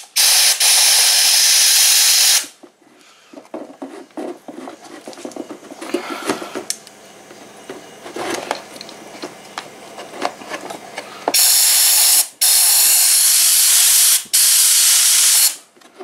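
Compressed air from a blow gun hissing through a coffee maker's clogged plastic water tube and heating element, blown back through to clear rusty deposits: one blast of about two seconds at the start, then three one- to two-second blasts in a row near the end, with small clicks and tube handling between.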